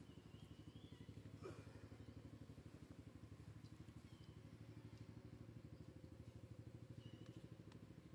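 Faint small engine running steadily with a low, rapid pulsing, with a few short high chirps and one brief falling squeak about a second and a half in.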